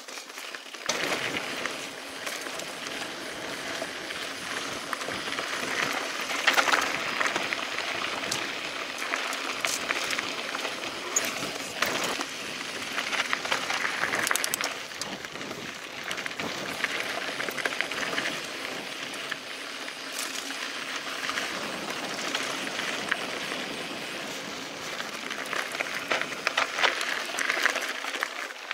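Mountain bike riding over a dirt and gravel trail: tyres crunching on the loose surface with frequent rattles and knocks from the bike, getting louder about a second in.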